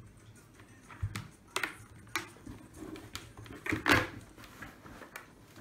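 A motorcycle helmet and its intercom parts being handled: scattered clicks and knocks, the loudest about four seconds in as the helmet is lifted.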